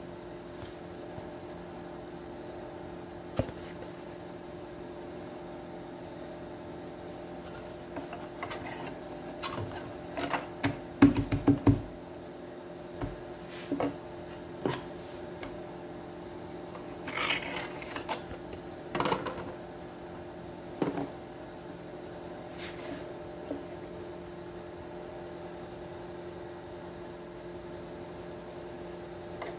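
Light knocks, clicks and scraping of hand tools and thin plywood parts being handled on a model boat hull, over a steady background hum. The sharpest knocks come in a quick cluster about a third of the way in.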